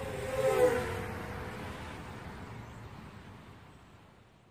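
Intro title sound effect: a short swell with a few gliding tones, loudest about half a second in, then a long hissing tail that fades away over about four seconds.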